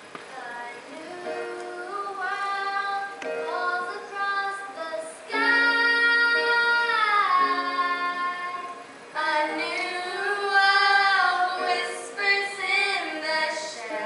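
Young girls singing a melody. About five seconds in comes a long held note that slides down and ends about four seconds later, before the singing picks up again.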